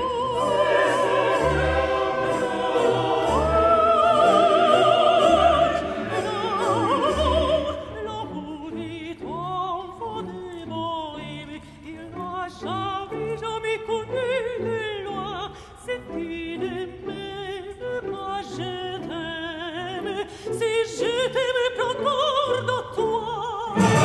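Background music: operatic singing with strong vibrato over classical accompaniment. The music is fuller, with regular low pulses, for the first seven seconds or so, then turns sparser.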